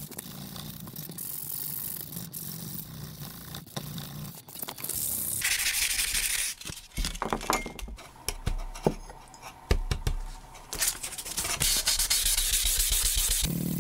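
Sandpaper rubbing back and forth along the steel blade of a hand saw, wet-sanding it, in two longer spells of scratchy hiss with scattered clicks and knocks in between.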